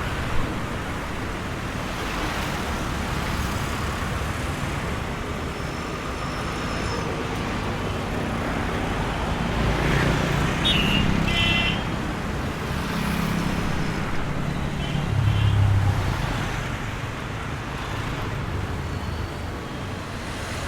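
Road traffic passing by: a steady wash of engines and tyres, with heavier vehicles going past in the middle and a few short horn beeps about eleven seconds in.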